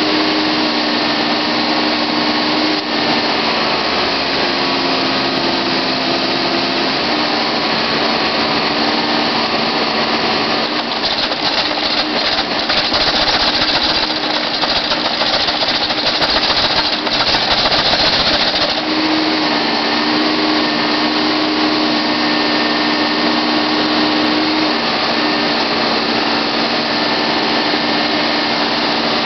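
Case 580 Super L backhoe loader's diesel engine running steadily as the backhoe arm digs, its pitch stepping up and down a few times. For several seconds in the middle, while the bucket works in the dirt, it grows louder and noisier.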